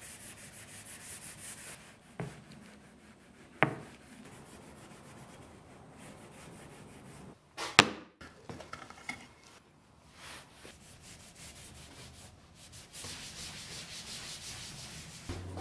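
Cloth rubbing back and forth along oak drawer-face trim in quick, even strokes, near the start and again near the end. In between come a few wooden knocks, the loudest a sharp knock a little before halfway.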